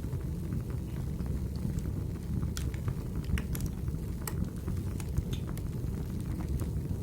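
Wood fire burning in a fireplace: a steady low rumble with scattered sharp crackles and pops, most of them in the middle.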